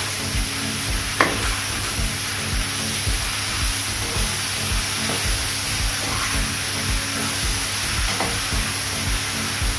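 Diced ridge gourd and onions frying in oil in a metal kadai while a metal ladle stirs them, scraping and tapping the pan, with one sharp clank about a second in.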